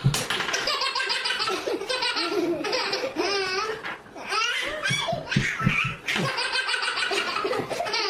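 Baby laughing hard in long peals of belly laughter, with short breaks for breath about four and six seconds in.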